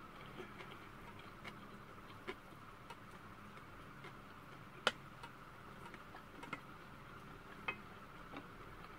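Wooden chopsticks clicking and scraping against a stainless steel bowl as rice is stirred and picked up: scattered small irregular clicks, with a sharper one about five seconds in and another near the end. A faint steady hum runs underneath.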